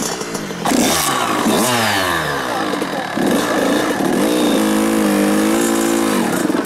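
Kawasaki KX two-stroke dirt bike engine revving, its pitch falling and rising over the first few seconds, then held at a steady speed for about two seconds near the end.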